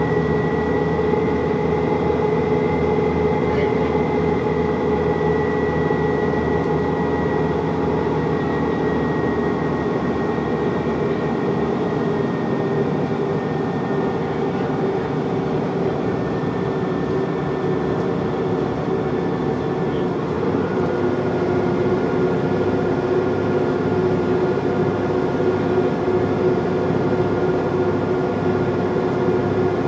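Stagecoach bus's diesel engine and drivetrain pulling under load up a long hill, heard from inside the bus. A high whine slowly sinks in pitch, and about twenty seconds in the tones shift to new pitches.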